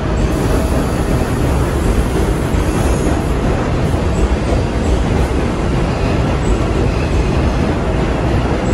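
Loud, steady rumble of a subway train in an underground station, with no single event standing out.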